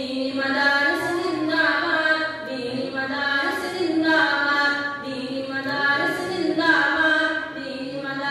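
A boy singing a tarana (a madrasa anthem) unaccompanied into a microphone, in phrases of held, wavering notes.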